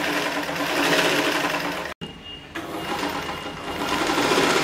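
Sewing machine driven by an electric motor and run from a foot pedal, stitching at speed with a steady, fast running noise. It cuts off abruptly for a moment about two seconds in, then runs on, a little louder near the end.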